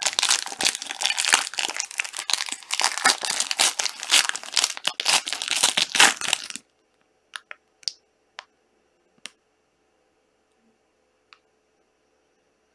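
Plastic trading card pack wrapper being torn and crumpled, a loud dense crinkling for about six and a half seconds that stops abruptly, followed by a few faint clicks of cards being handled.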